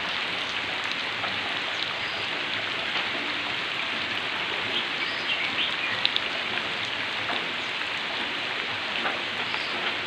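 Heavy rain falling steadily with no wind: a dense, even hiss with scattered small drop ticks.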